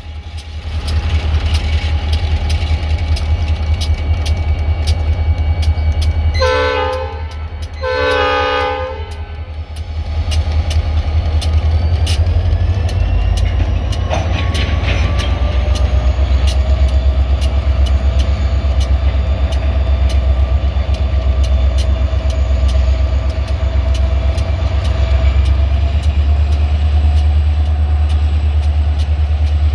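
Two EMD SD40-type diesel locomotives, each a turbocharged 16-cylinder two-stroke, working under load with a deep steady rumble. A few seconds in they give two horn blasts of about a second each; from about halfway their engines throttle up in a slowly climbing whine as they pull the train away, with steady clicks of wheels over the rail joints.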